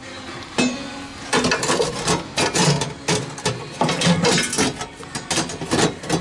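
Thin sheet-steel patch panel being handled and pressed down over a rust-repair cut-out in a 1995 Suzuki Sierra's floor pan. It clatters and knocks against the metal in quick, irregular knocks, several a second.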